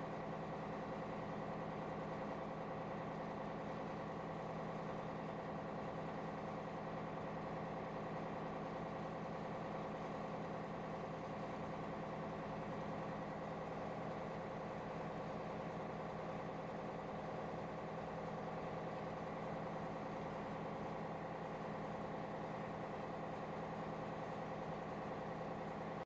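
Cargo ship's diesel engine running at a steady low speed, a constant drone made of several steady tones with no change in pitch.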